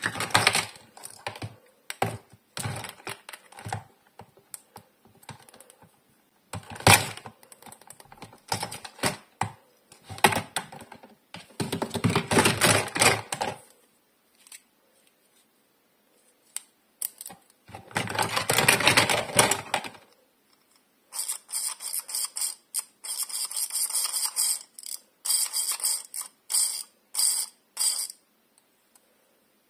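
Small plastic toy doctor-kit pieces clicking and clattering against each other and a clear plastic storage box as they are handled and picked through, in irregular bursts of taps and rattles. In the last third the sound turns to a lighter, higher crackle.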